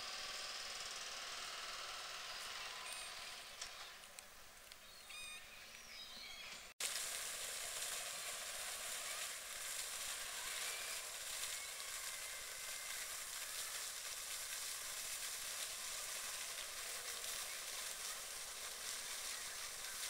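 Steady outdoor hiss, with a few faint high chirps in the first seconds. The sound drops out for an instant about seven seconds in, then the hiss goes on a little louder.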